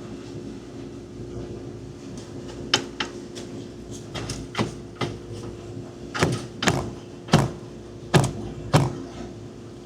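A series of about nine sharp, irregular knocks of tools against metal during steering work, most of them in the second half, over a steady low hum.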